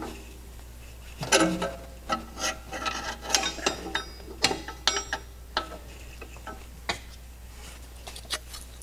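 Steel U-bolts and their hardware clinking and rattling against the rear axle and leaf spring as they are fitted by hand: irregular metal clicks and knocks, a few with a short ring, thinning out after about seven seconds.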